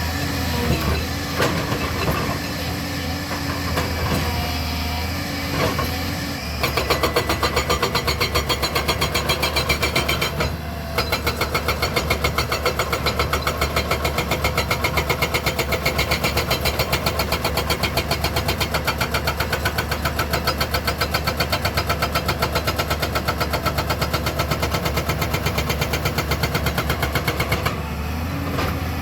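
A JCB 215 excavator's engine runs with a few knocks, then its hydraulic rock breaker hammers on rock with fast, even blows for about twenty seconds. The hammering stops briefly about ten seconds in before starting again.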